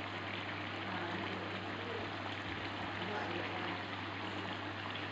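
Steady hiss of a stove burner under a wok of simmering fish curry, with a constant low electrical hum.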